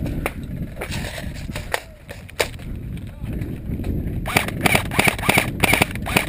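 Airsoft electric M4 rifle firing several short full-auto bursts in the last two seconds or so: a fast, even mechanical rattle. Before that come a few separate clicks and knocks of the rifle being handled during a reload.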